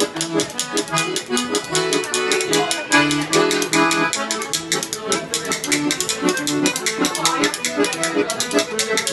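Button accordion playing a lively tune, with a pair of spoons clicking a fast, steady rhythm along with it.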